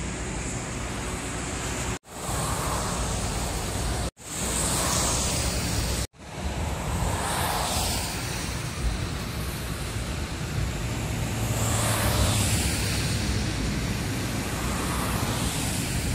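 Road traffic on a wet road: a steady rush of tyre hiss and wind that swells several times as vehicles pass, once with a low engine hum under it. The sound drops out for an instant three times in the first few seconds.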